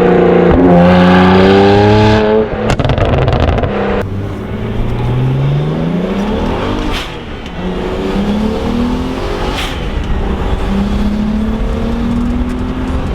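Car engine revving and accelerating hard, its pitch climbing in several pulls, with sudden cuts about two and four seconds in.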